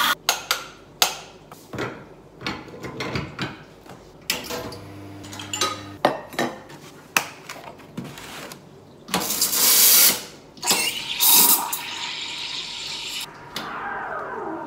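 Kitchen clatter: dishes and utensils clinking and knocking on the counter, with a few seconds of water running into a container past the middle.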